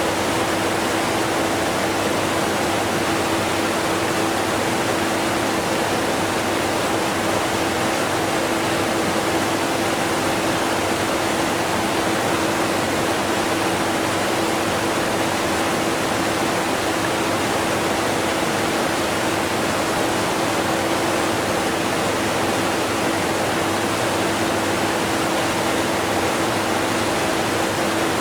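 Steady rush of a strong waterfall mixed with a running vacuum cleaner. The vacuum is heard only as a faint, steady hum under the water noise.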